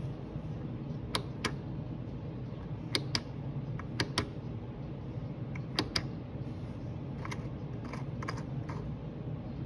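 Sharp plastic clicks from the push-button knob of a prototype switch housing being pressed and released, mostly in quick pairs, a dozen or so in all, switching a red LED on and off. A steady low hum runs underneath.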